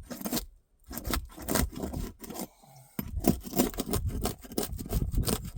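Repeated scraping and rasping strokes as an old asphalt roof shingle is worked loose from its seal strip, with a brief pause about half a second in and a quieter spell near the middle.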